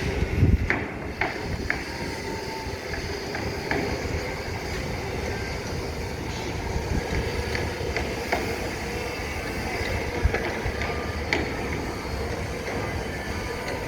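Construction site noise: machinery running steadily, with scattered sharp metal clanks and knocks.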